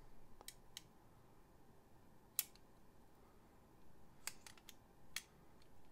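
Near silence broken by scattered faint metallic clicks and taps as steel digital calipers and chrome ratchets are handled and the caliper jaws close on a ratchet head, the sharpest click about two and a half seconds in and a quick cluster near the end.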